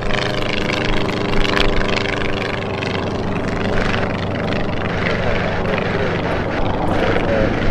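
Light single-engine propeller aircraft flying past, its engine giving a steady drone.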